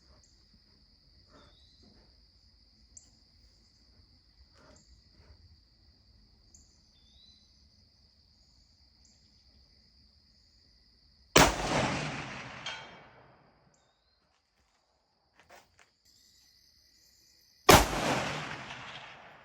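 Two rifle shots from a Bear Creek Arsenal AR-15 chambered in .338 ARC, about six seconds apart, the second near the end. Each crack is followed by an echo rolling away over about two seconds.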